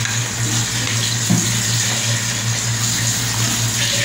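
Wooden spoon stirring beef trotters in a large pot of watery spiced broth, the liquid sloshing, over a steady hiss and low hum.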